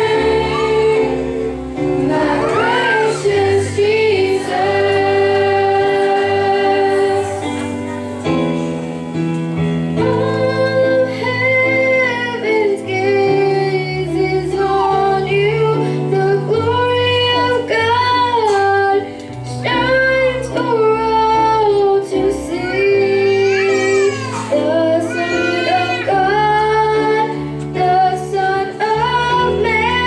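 A girl singing a solo melody into a microphone, with long held notes and slides in pitch, over instrumental accompaniment.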